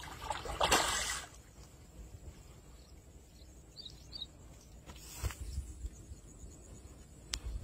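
Hooked fish thrashing and splashing at the water's surface about a second in, then splashing again more briefly near five seconds. A bird chirps twice in between.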